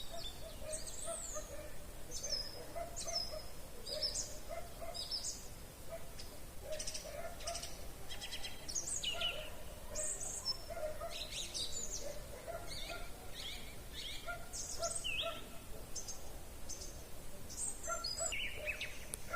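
Evening chorus of wild songbirds: many overlapping high chirps and short song phrases. Underneath runs a steady series of short low calls repeating every fraction of a second.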